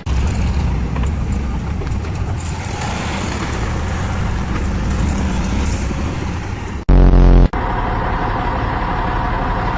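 Heavy machinery engine running with a steady low rumble. About seven seconds in, a loud blaring tone cuts in for about half a second, and then a steadier engine hum carries on.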